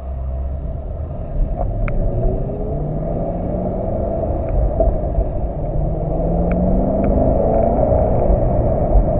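2015 Chevrolet SS's 6.2-litre LS3 V8 accelerating from a standstill through its manual gearbox, heard from inside the cabin. The engine note rises in pitch, drops at a gear change and climbs again, getting louder as speed builds.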